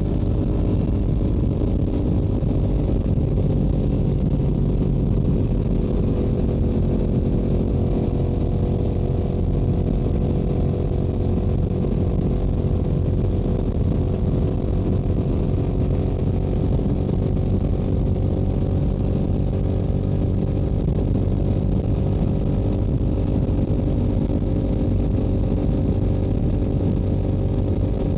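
Stock Yamaha YZF-R7 parallel-twin engine and exhaust holding a steady highway cruise, its pitch drifting only slightly, over a low rush of wind noise.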